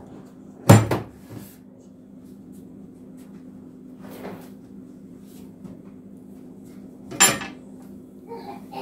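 Kitchen handling sounds: a stainless steel mixing bowl being set onto a stand mixer base, with two sharp clunks about a second in, light knocks and rattles of jars on the counter, and another sharp clatter near the end. A steady low hum runs underneath.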